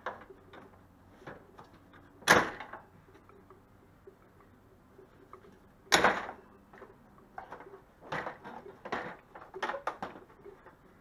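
Plastic front grille of a 2004 Chevrolet Express van being pried loose by hand: two sharp snaps of its retaining clips, about two and six seconds in, then a run of smaller plastic clicks and knocks near the end.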